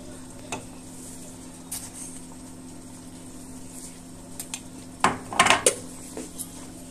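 Dishes, pots and cutlery clinking and knocking during cooking: a few scattered knocks, then a quick run of louder clatter about five seconds in, over a steady low hum.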